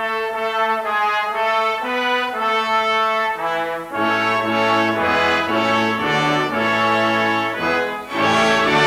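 A brass section of French horns, trumpets, trombones and tuba playing sustained chords, with lower notes coming in about halfway through; the sound grows fuller near the end.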